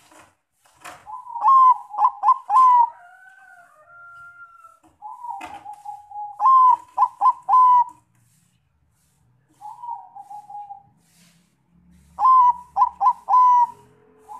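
Zebra dove (Bangkok perkutut) singing: three phrases, each a rolling coo that ends in four sharp, accented notes, with a shorter coo between the second and third.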